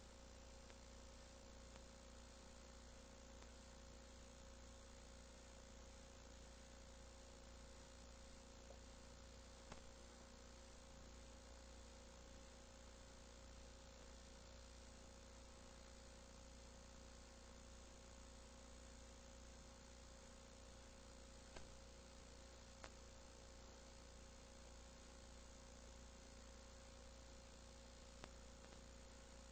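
Near silence: a faint steady electrical hum and hiss, with a thin steady tone and a few faint clicks.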